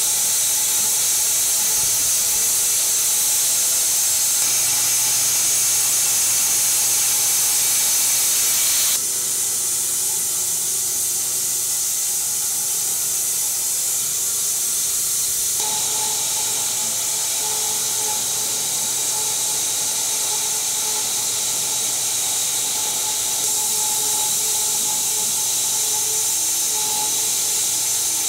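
Homemade wide-cut bandsaw mill sawing through a walnut log: a steady, loud hiss of the blade in the wood over a low steady hum. The sound changes abruptly about nine seconds in.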